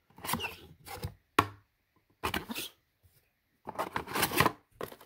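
Cardboard box tray and paper inserts being handled: several short bursts of rustling and sliding, with a sharp tap about one and a half seconds in.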